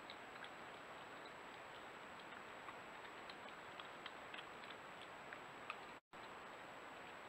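Badgers foraging on gravelly ground: faint, irregular small clicks, several a second at times, over the trail camera's steady hiss and thin high electronic whine. The sound drops out for an instant near the end.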